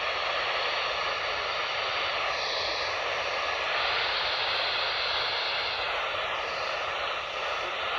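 Steady radio static hiss from a weather-radio receiver between spoken messages, with a faint wavering tone underneath.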